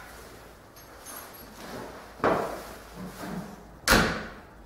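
Two sudden knocks as someone climbs into a Zetor 7245 tractor cab; the second and louder, near the end, is the cab door slamming shut.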